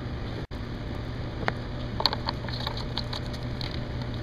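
Camera handling noise as a gloved hand grabs and moves the camera: scattered small clicks and knocks, bunched about two to three seconds in, over a steady low hum.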